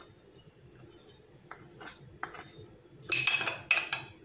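A metal spoon clinking against a glass tumbler as gelatin powder is stirred into water. A few light taps are followed, about three seconds in, by a quick run of louder clinks.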